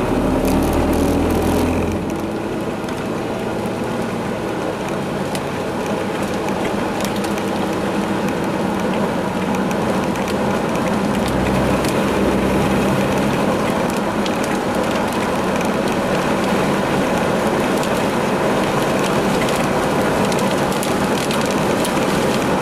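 Steady noise from inside a vehicle running in a storm, with light rain ticking on the body and glass throughout. A low hum drops away about two seconds in.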